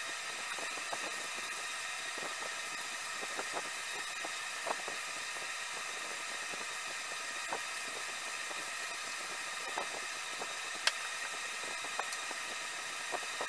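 Steady background hum and hiss with a few faint, scattered clicks.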